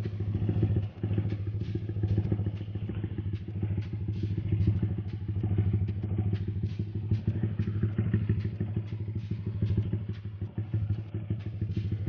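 Small motorcycle engine running steadily at low revs, close to the microphone on the rider's own bike, with a fast, even firing beat and no revving.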